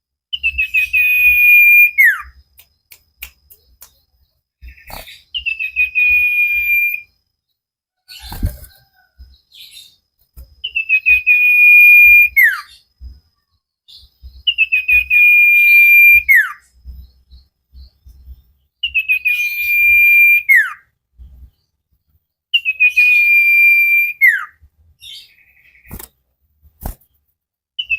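Common iora (cipoh) singing the same phrase six times, about every four seconds. Each phrase is a quick run of notes that settles into a long steady whistle and ends with a sharp downward slur. Between phrases there are a few faint clicks and one thump about eight seconds in.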